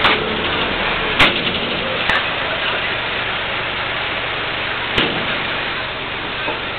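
Truck-mounted crane's engine running steadily while it holds a large fir tree upright, with a few short clicks over it.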